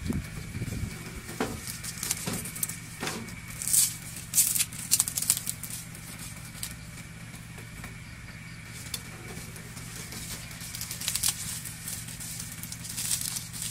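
Dry straw and thin kindling sticks rustling and crackling in irregular bursts as they are laid into a clay charcoal stove over a small flame, with a steady low hum underneath.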